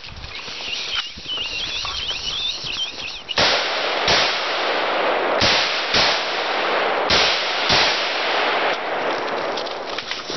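AR-15 rifle shots, about six sharp reports spaced irregularly across the stretch, mostly in the second half. A loud rushing noise comes in about three and a half seconds in and eases off near the end.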